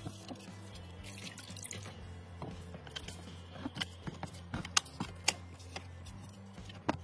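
Water dripping and splashing as the rusty AK-47 is scrubbed in a tub of liquid, then scattered sharp metallic clicks as the rusty receiver is stripped and its dust cover worked off, the loudest about two thirds of the way in. A low steady hum runs underneath.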